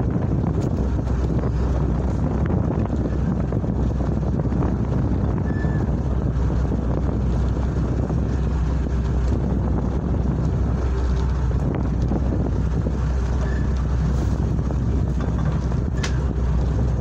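Steady wind rumbling on the microphone aboard a small open boat at sea, with a few short knocks, the clearest near the end.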